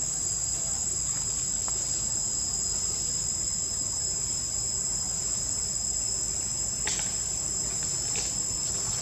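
Steady high-pitched insect chorus from the surrounding forest, several even tones held without a break, over a low steady rumble. A couple of short faint sounds come near the end.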